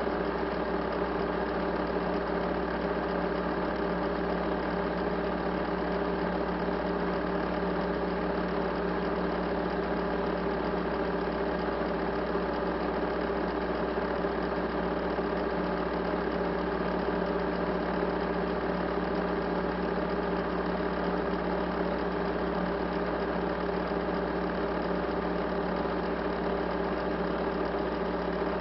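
Steady, unchanging machine hum made of several fixed tones over a faint hiss.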